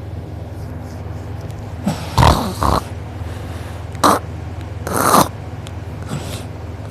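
A sleeping person snoring loudly with her mouth open, over a steady low hum. There are three harsh snores: a drawn-out double one about two seconds in, a short one about four seconds in, and another about a second later.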